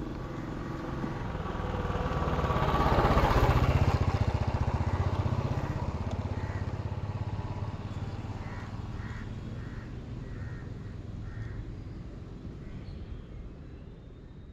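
A vehicle engine passing by: it rumbles louder to a peak about three and a half seconds in, then slowly fades away.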